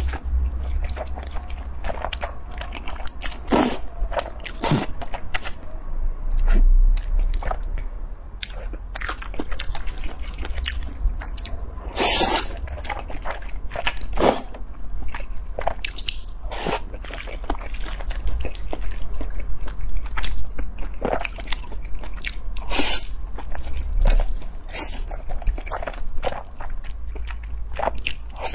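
Close-miked eating: wide flat noodles slurped from chopsticks and chewed, in irregular strokes with some longer slurps, over a steady low hum.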